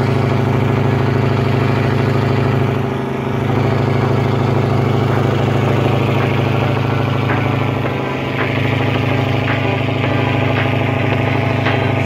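Boat engine running steadily, its level dipping briefly about three seconds in and again about eight seconds in.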